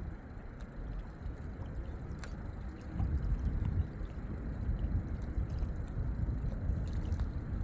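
Lake water lapping and gurgling at the shore, a steady low churning that swells a little about three seconds in, with faint ticks of water on top.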